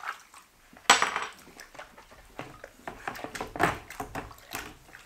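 Small airless-sprayer parts clattering and knocking against each other and the plastic bucket as they are scrubbed by hand in water. There is a sharp knock about a second in, then a run of lighter clicks.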